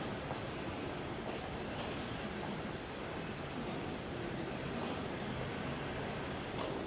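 Steady outdoor background noise with a few faint high chirps.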